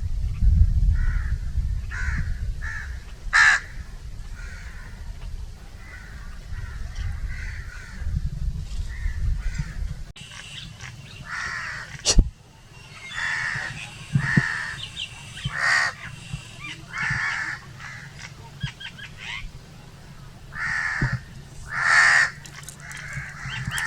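Crows cawing over and over in short repeated calls. A low rumble under the first calls stops abruptly about ten seconds in. After a sharp click a couple of seconds later, clearer, louder caws come one after another.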